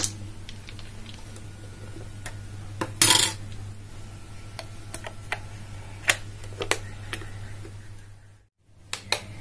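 Plastic clicks, knocks and a short scrape as a digital blood pressure monitor is handled and its battery compartment cover taken off, showing the AA batteries inside. A steady low hum runs underneath.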